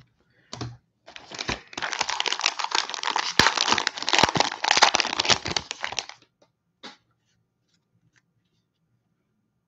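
Plastic cello-pack wrapper of a basketball card pack being torn open and crinkled by hand, a dense crinkling that lasts about five seconds.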